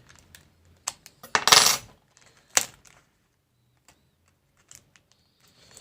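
Light metallic clicks and a short scrape of a tool against a MacBook Pro's aluminium top case as the stuck old keyboard backlight sheet is pried up. The scrape comes about a second and a half in and is the loudest part, with a sharp click just after and faint ticks later.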